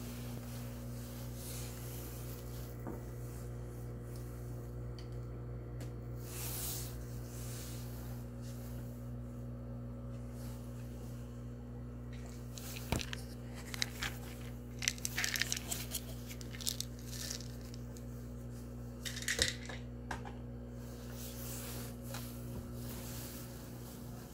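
A steady low machine hum with several fixed pitches. Over it, a sharp click comes about halfway through, followed by scattered crackly rustles and another click a few seconds later.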